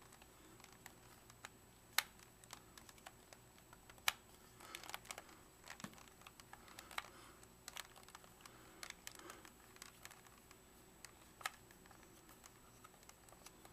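Small metal screwdriver working at the plastic case of a Vivitar 2800 flash to take it apart: faint, irregular clicks and scraping of metal on plastic, with a few sharper clicks.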